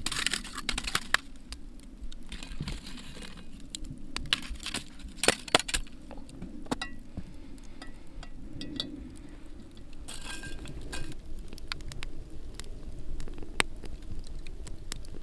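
Metal tongs clinking and scraping against glowing charcoal coals and a cast iron Dutch oven as coals are shifted, with scattered sharp clicks over the crackle of the wood fire beneath.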